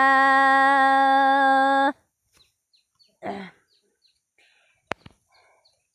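A singer holds one long note of a Dao lượn song, then stops sharply about two seconds in. Faint bird chirps follow, with a brief call about three seconds in and a sharp click near the end.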